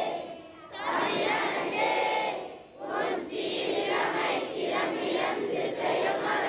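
A group of children singing together in unison, in phrases with two short breaks about half a second and nearly three seconds in.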